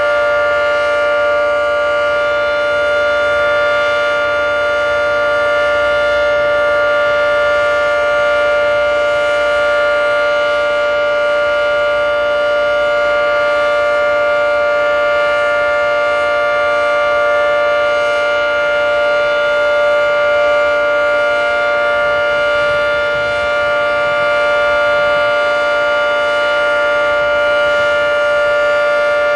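Federal Signal 3T22 three-tone electromechanical civil defense siren sounding its steady alert signal at full speed. It holds a loud, unwavering chord at constant pitch, with no rise or fall.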